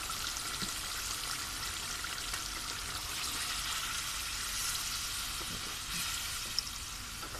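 Mutton korma masala sizzling steadily in an aluminium pot as water is added to the oil-separated, fully fried masala and stirred with a metal spoon.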